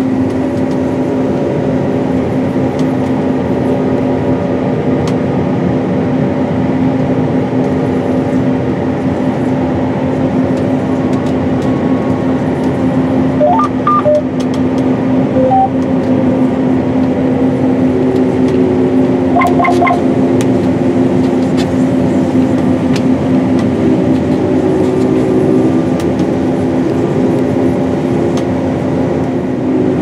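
Steady drone of a John Deere S790 combine harvesting, heard from inside the cab, with a constant hum under the machine noise. A few short electronic beeps sound around the middle.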